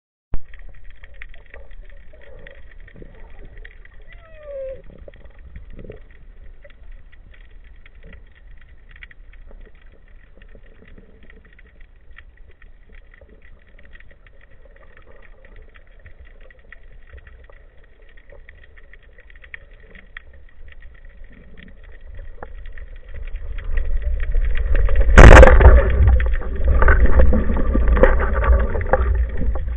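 Quiet underwater ambience with faint scattered clicks and crackles. About 25 seconds in comes one sharp, loud crack, the band-powered speargun firing, followed by loud churning water noise.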